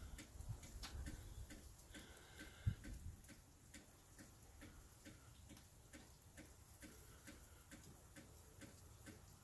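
Near silence with faint, regular ticking, about two ticks a second, and a soft low thump nearly three seconds in.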